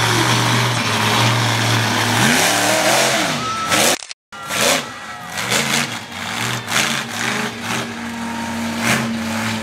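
Clydesdale monster truck's engine running loud, its revs rising and falling several times. The sound breaks off for a moment about four seconds in, then the engine runs on with more revving.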